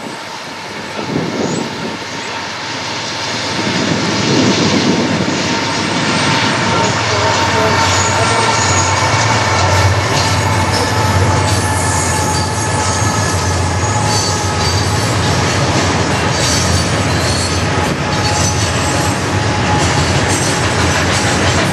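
Norfolk Southern freight train passing close by. Its two diesel locomotives go by first, the sound building over the first few seconds. Then a string of covered hoppers and tank cars rolls past with a steady rumble of wheels on rail, high wheel squeal and rail-joint clicks.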